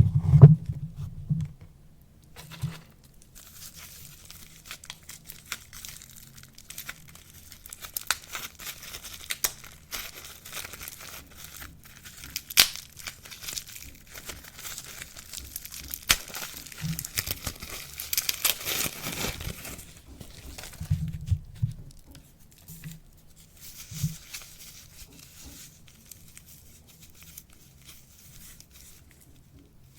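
Soap wrapping being torn open and crinkled by hand: irregular tearing and crackling, busiest in the middle and thinning out near the end, with a few low knocks at the start and one sharp click partway through.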